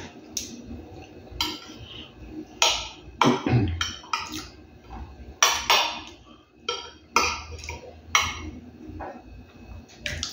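A metal spoon scraping and clinking against a plate in short, irregular strokes, about ten in all, with close-up chewing in between.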